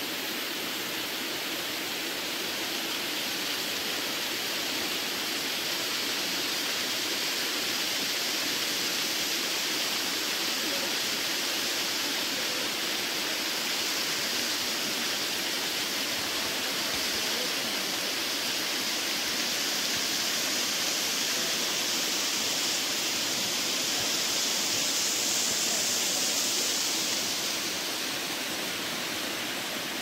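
Waterfall pouring and splashing down a steep rock face: a steady rushing hiss, swelling a little near the end.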